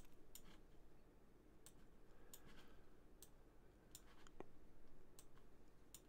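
Faint, scattered clicks of a computer mouse, about ten at irregular intervals.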